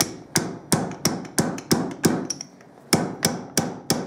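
Slide-hammer fork seal driver tapped down the stanchion of a Kawasaki ZX-7R upside-down fork, striking gently about three times a second with a short metallic ring, pausing for about a second midway. It is driving a new oil seal into its seat in the fork leg, the seal not yet fully home.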